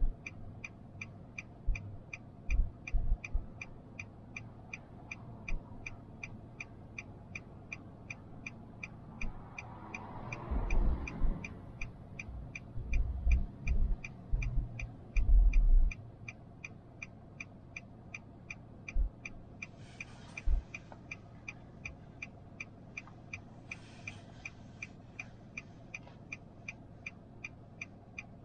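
A car's turn indicator ticking steadily, a little over two ticks a second. About ten seconds in, a nearby vehicle rumbles past with low thumps for several seconds, and two short hisses follow later.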